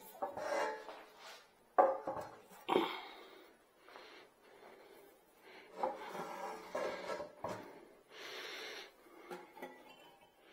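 Handling noises from a dust collector and its parts: irregular rubbing and scraping with a few knocks, the sharpest about two seconds in, and a rubbing hiss lasting about a second near the end.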